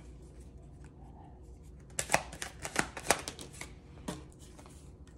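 A deck of tarot cards being shuffled by hand: after a quiet start, a quick run of sharp card snaps about two seconds in, lasting about two seconds.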